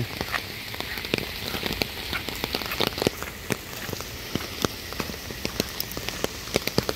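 Heavy rain falling steadily, with many sharp, irregular drop hits close by.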